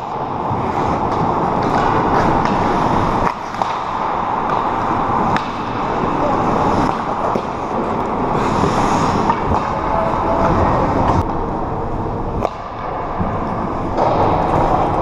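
Ice hockey skates scraping and carving on rink ice, with sharp clacks of sticks and puck every few seconds.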